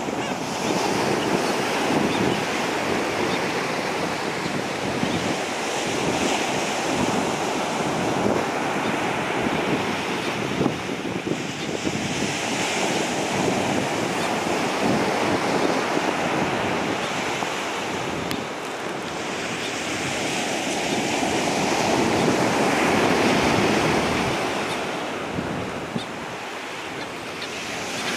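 Ocean surf breaking and washing up a sandy beach, swelling and ebbing every several seconds, with wind buffeting the microphone.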